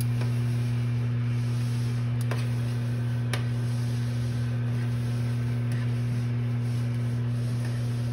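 Microwave oven running with a steady low hum. Two faint clicks of metal tongs against a stainless steel pot, about two and three seconds in.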